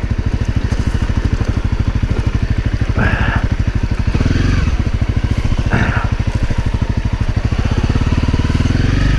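The single-cylinder four-stroke engine of a 2017 Honda CRF250L dirt bike idling at rest, with an even, rapid putter.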